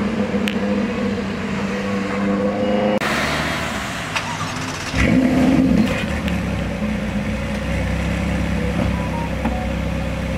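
Car engine running at low speed as the car moves slowly. The sound changes abruptly about three seconds in, and a short louder swell comes about five seconds in.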